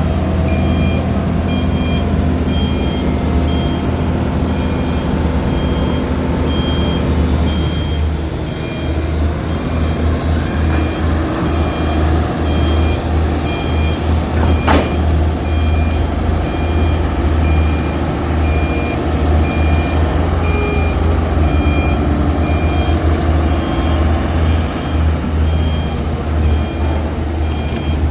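Heavy diesel mining machinery, an excavator and a dump truck, running with a steady low engine drone. A reversing alarm beeps over it again and again. One sharp clank comes about halfway through.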